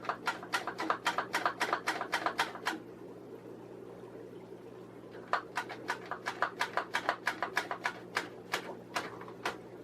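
Quick, even mechanical clicks from a hand tool being worked, about five a second, in two runs: one for nearly three seconds, then a pause, then another for about four seconds.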